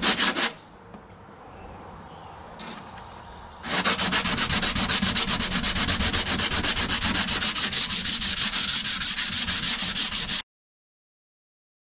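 Coarse 80-grit sandpaper rubbed by hand over the gelcoat of a fiberglass seat cowl wet with cyanoacrylate, working up sanding dust into the setting glue to fill the cracks. A brief scrub at the start, then about four seconds in fast, even back-and-forth strokes that cut off suddenly near the end.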